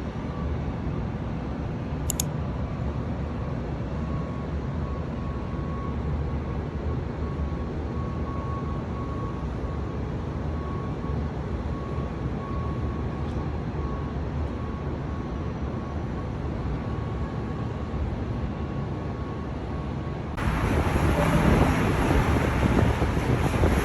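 Steady low rumble of outdoor background noise, which switches abruptly near the end to a louder rushing noise.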